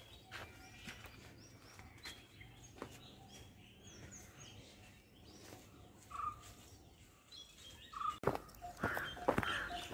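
Small birds chirping, with scattered footsteps on dry leaves; the steps get louder near the end.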